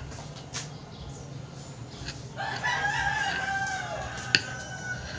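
A rooster crowing once, one long call starting about halfway through and dropping in pitch at its end. A single sharp click follows near the end and is the loudest moment, with a few fainter clicks earlier.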